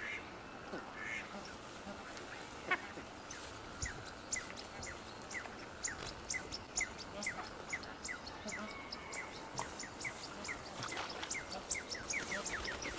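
Birds calling: a rapid run of short, falling chirps, about two or three a second, starting about four seconds in.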